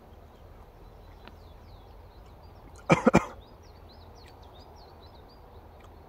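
A small songbird sings a quick run of high chirping notes in the background over a steady low rumble. A single short, loud, noisy burst comes about halfway through.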